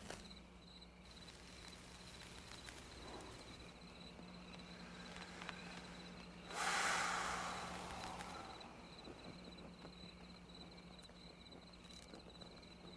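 Quiet film soundtrack ambience: a low steady hum under faint background hiss, with one soft rushing hiss that swells suddenly about six and a half seconds in and fades away over a second or two.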